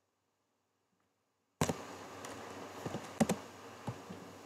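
Silence, then about one and a half seconds in a faint room hiss comes on with a handful of sharp, irregular computer mouse clicks.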